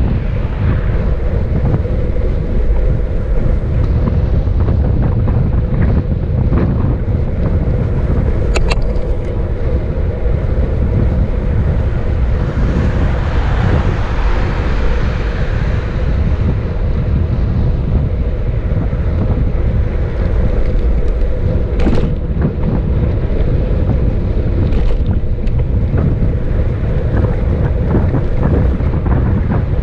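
Wind buffeting the microphone of a moving action camera, a steady low rumble with a faint steady hum and a few brief clicks.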